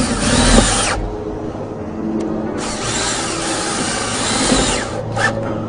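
Power drill driving a fastener through the mounting bracket into the solar panel frame, running in two spells: the first stops about a second in, and the second runs for about two seconds from around the middle.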